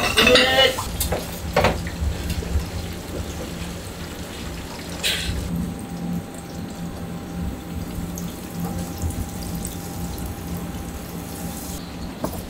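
Steady commercial-kitchen background noise: an even rush like running water over a low, constant hum. A brief scrape or clatter comes about five seconds in.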